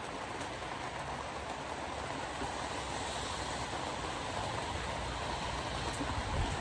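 Steady hiss of heavy rain and wet-road tyre noise from a car driving in a downpour, with a low rumble that grows near the end.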